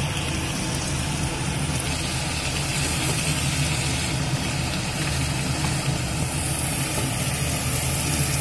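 Chicken pieces sizzling in hot oil and masala in a frying pan as they are turned with a wooden spatula, over a steady low mechanical hum.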